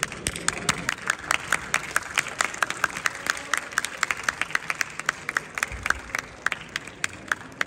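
Audience applauding, the claps dying away near the end.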